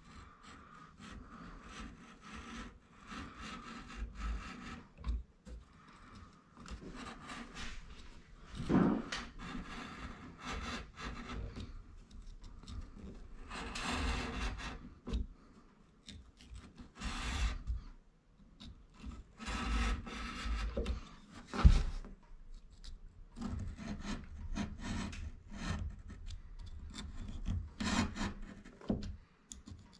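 Utility knife blade scoring and cutting along a traced outline in the MDF edge of a door: irregular scraping strokes of the blade across the board, with a sharp click a little over twenty seconds in.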